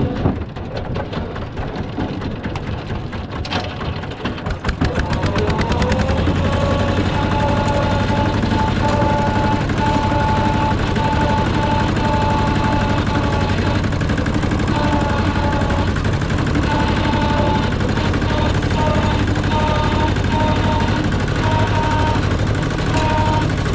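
Rice combine harvester's diesel engine clattering at low revs, then revving up about five seconds in and running steadily at high speed with a high whine that comes and goes.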